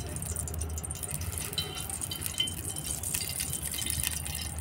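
Mustard oil trickling in a thin stream from a plastic bag into a large empty aluminium pot, over a steady low background hiss.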